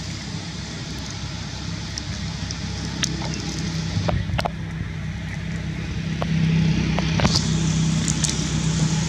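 A steady low engine-like hum, growing louder about six seconds in, with scattered light clicks and crackles over it.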